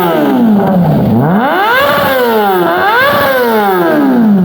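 Kawasaki ZX-25R's 250 cc inline-four, fitted with an M4 aftermarket exhaust, being free-revved: the revs fall away, then are blipped up and back down twice, sinking toward idle at the end.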